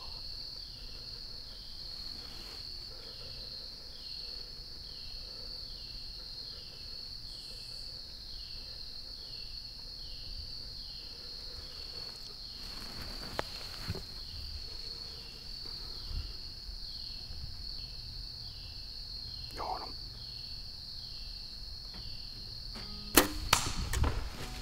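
A compound bow is shot about a second and a half before the end: one sharp crack, the loudest sound, then a few quick knocks and rustles as the struck buck falls and kicks in the leaf litter. Under it runs a steady drone of insects, with a pulsing chirp a little more than once a second.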